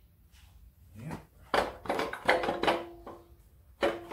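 Metal air-conditioning compressor knocking and scraping against the engine's front mounting as it is offered up into place: a cluster of sharp clunks with brief metallic ringing from about a second and a half in, and one more knock near the end.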